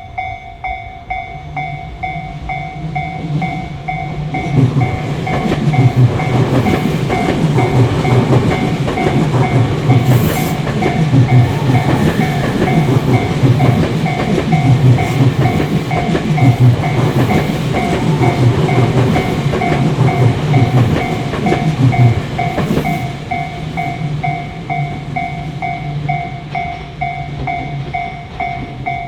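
Japanese level-crossing warning bell ringing in a steady, evenly repeating pattern while a Tobu Tojo Line train passes over the crossing. The train's rumble and clacking wheels swell a few seconds in and ease off about 23 seconds in; the bell keeps ringing.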